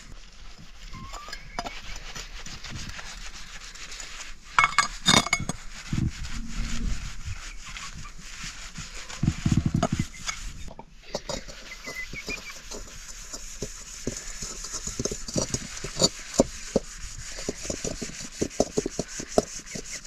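Kitchen cooking sounds: pots and utensils clinking, knocking and scraping at irregular intervals, with a few heavier thuds in the first half and an even hiss through the second half.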